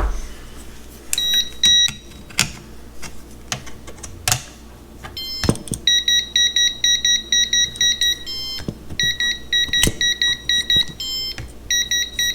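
Electrical voltage tester beeping in rapid pulses as it is held near the wires, signalling a live conductor; a short burst about a second in, then steady rapid beeping from about halfway through with brief breaks, and a few clicks of wires being handled.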